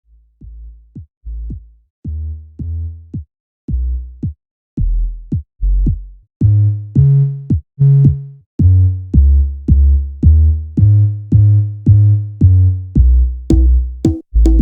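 Generative synthesizer music from a Bitwig Grid patch: a steady run of short, decaying, bass-heavy synth notes, about two a second, entering quietly and growing louder. Sharp, clicky drum-machine ticks join near the end.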